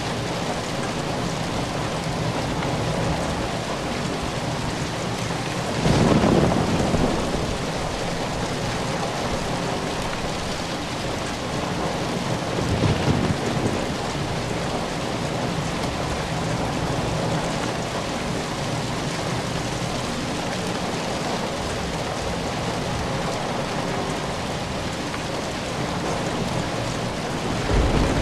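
Steady rain falling, with low rumbles of thunder swelling up about six seconds in, more faintly around thirteen seconds, and again near the end.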